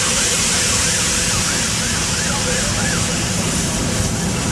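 Coaches of a steam-hauled train rolling past: a loud steady hiss of steam escaping from beneath the coaches over the rumble and clatter of the wheels, with a faint wavering squeal that rises and falls about three times a second.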